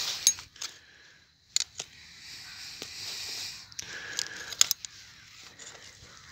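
A cloth rag rubbing and rustling as an engine-oil dipstick is wiped clean, with a few sharp clicks and taps.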